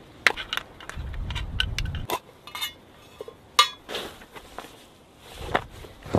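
Small metal items clinking inside a leather drawstring pouch as it is handled and pulled shut, a string of sharp clinks, some with a short ring, and a low rubbing of leather between them.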